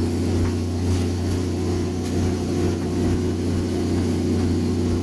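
A fishing boat's diesel engine running steadily at sea, a constant low hum with no change in speed.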